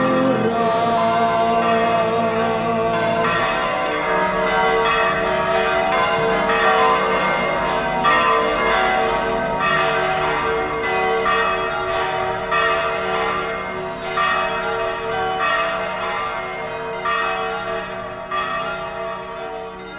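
Church bells ringing, struck over and over about once a second, the rich ringing tones overlapping and slowly fading in loudness.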